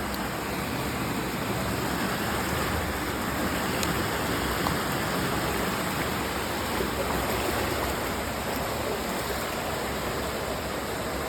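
Creek water rushing and gurgling steadily over rocks, a continuous even noise.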